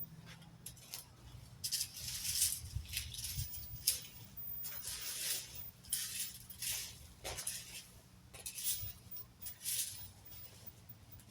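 Dry leaves rustling and scraping in short, uneven strokes, about one a second, as leaf litter is worked over.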